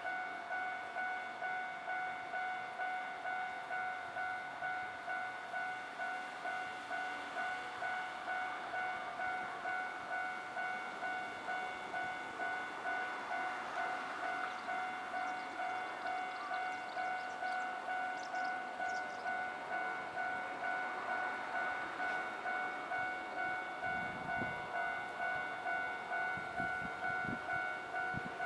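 Japanese level-crossing warning bell ringing, an even repeating ding. A train's low rumble and clatter join in about four seconds before the end.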